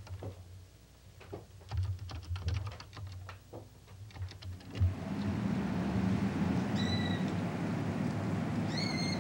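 Keys clicking irregularly on a computer keyboard as text is typed. About five seconds in this gives way to steady outdoor background noise with a low hum, and two short high arched calls sound near the end.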